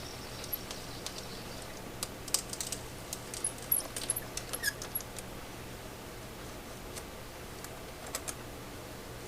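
Irregular small metal clicks and ticks from handling a chainsaw chain in a hand-cranked chain sharpener fitted over the bar. The clicks are densest a couple of seconds in, with a few more near the end.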